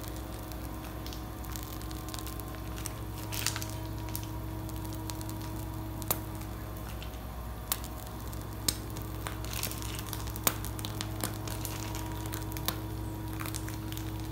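Whipped cream squeezed from a piping bag through a serrated nozzle, a soft squishing, with a few sharp clicks scattered through the middle, over a steady low hum.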